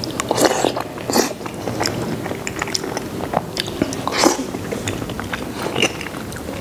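A man chewing a mouthful of soft braised pig-head meat dipped in chili sauce, close to the microphone, with many quick mouth clicks throughout.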